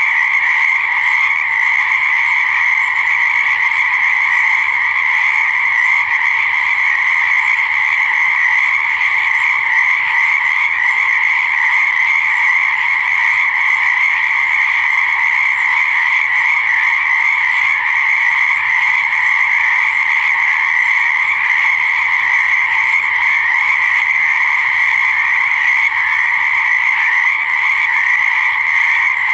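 Dense, unbroken chorus of many frogs calling together at a pond or swamp, a steady high-pitched din with no pauses.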